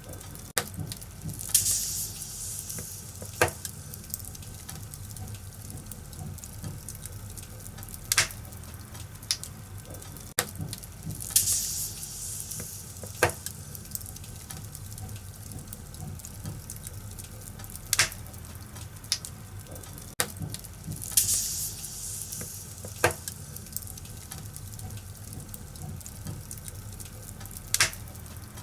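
Wood fire in a fireplace crackling, with scattered sharp pops and a soft hissing flare every ten seconds or so. The same pattern of pops repeats about every ten seconds, as in a looped recording.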